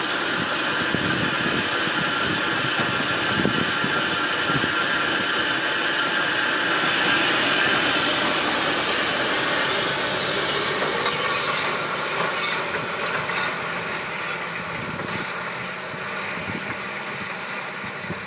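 A tractor pulling a no-till row-crop planter through stubble, with steady mechanical running and the rattle of the planter's row units and drive chains. There is a patch of sharper clicking about eleven seconds in, and the sound fades over the last few seconds as the rig moves away.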